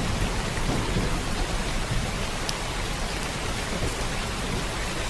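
Steady rain falling, with a low rumble of thunder dying away in the first second. A few single drops can be heard on top of the rain.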